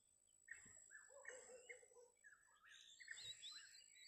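Faint birdsong: a string of short chirps and quick warbling calls from small birds, with a thin, steady high-pitched tone behind them.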